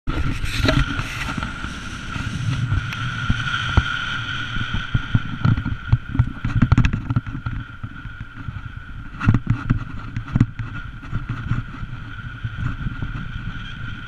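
Car driving on a rough, potholed gravel road: a steady rumble of tyres on gravel with frequent knocks and rattles as the wheels hit stones and potholes, heaviest in two clusters through the middle, and a steady high whistling tone above it all.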